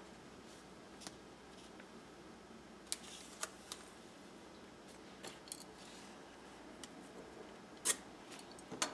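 Faint handling noises of washi tape being laid across a paper notebook page and pressed down by hand: scattered soft clicks and light paper rustles, a little louder near the end.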